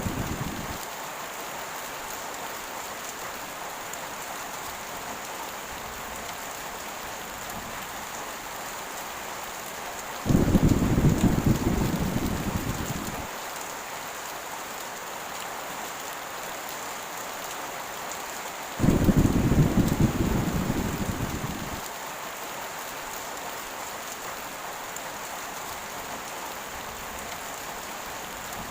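Heavy rain falling steadily, with two rolls of thunder, one about ten seconds in and another near twenty seconds in, each starting suddenly and fading away over about three seconds; an earlier roll is dying away at the very start.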